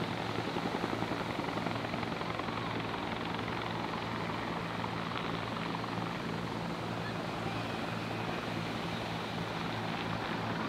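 Two Bell utility helicopters, one a UH-1 Huey, hovering with a rescuer on a hoist line. The rotors beat fast and evenly over a steady low drone, with no change in level.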